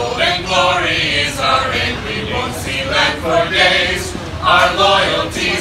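A small mixed group of voices singing a Christmas carol without accompaniment.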